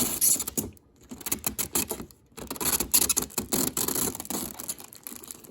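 Cardboard and plastic packaging of a Funko Pop box being handled and opened, a dense run of crinkling and crackling with two brief lulls.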